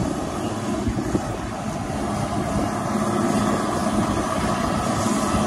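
Crawler crane's diesel engine running steadily as the crane hoists a tilt-up concrete wall panel upright.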